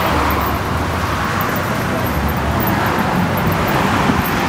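Road traffic on a city street: a steady rush of passing cars with a low rumble.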